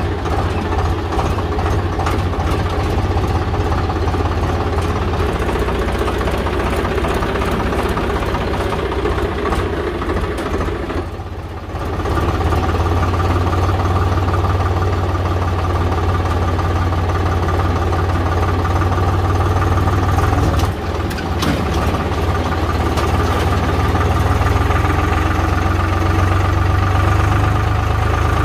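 Swaraj 735 tractor's three-cylinder diesel engine running steadily as the tractor drives along, heard from the driver's seat. The level dips briefly twice.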